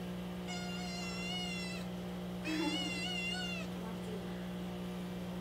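Two-month-old kitten meowing twice, two high-pitched, wavering meows of about a second each, over a steady low hum. The kitten meows constantly, which the owner takes to be from being somewhere new or from calling for her mother.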